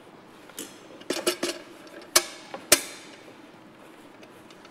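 Kitchenware being handled on a worktop: a few light clicks, then two sharp knocks about half a second apart, the second ringing briefly.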